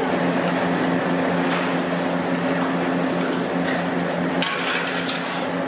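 Fish pieces deep-frying in a large iron kadai of hot oil, a steady sizzle over a low hum. A long metal ladle stirs them and knocks against the pan a couple of times in the second half.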